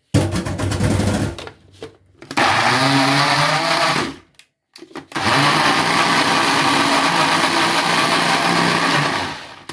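Countertop blender pureeing zucchini and garlic, run in three goes: a short burst, a second run of about two seconds, then a longer run of about four seconds that winds down near the end.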